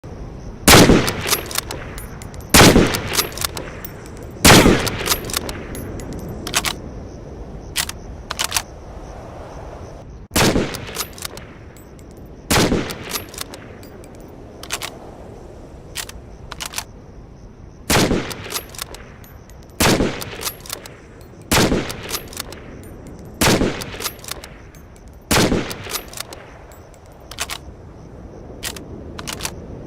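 Mosin-Nagant bolt-action rifle firing about ten single shots, mostly about two seconds apart, each with a short echoing tail. Fainter metallic clicks come between some of the shots.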